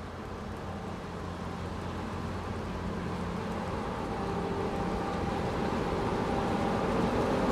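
Van engines running steadily as snow-covered vans drive slowly past, the hum growing gradually louder toward the end as they come close.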